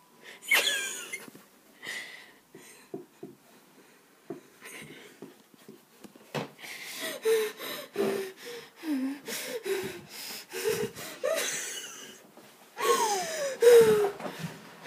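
Vocal horror sound effect: raspy, wheezing breaths and short moaning calls that slide up and down in pitch, ending in a longer falling cry.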